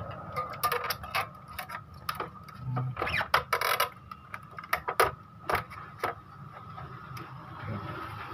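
A screwdriver working against the plastic and metal parts inside an opened Epson L3110 inkjet printer: a scattered run of small clicks, with a longer scrape a little past three seconds in.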